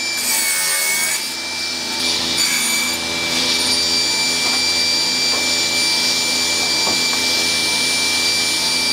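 Table saw running with a steady high whine, ripping lengths of wood into square sticks as they are fed through the blade.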